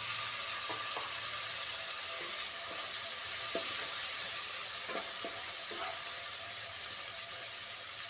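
Onion-and-spice masala sizzling in hot oil in a nonstick kadhai, just splashed with water to keep the spices from burning. The sizzle is a steady hiss that eases a little, with a few light scrapes of a wooden spatula stirring it against the pan.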